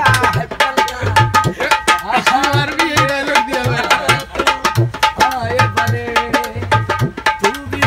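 Dholak, a rope-tensioned two-headed hand drum, played in a fast folk rhythm: deep bass strokes on one head against quick sharp slaps on the other. A wavering melodic line runs over the drumming.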